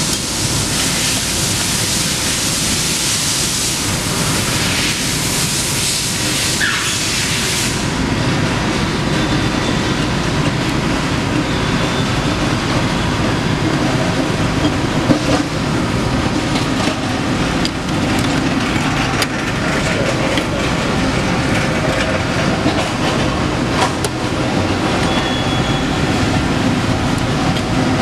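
Steady loud industrial shop din, a rumble with a high hiss that drops away about eight seconds in. Through it come a few sharp metallic clicks from hand wrenches and a ratchet tightening the bolts of a steel pipe-shoe clamp.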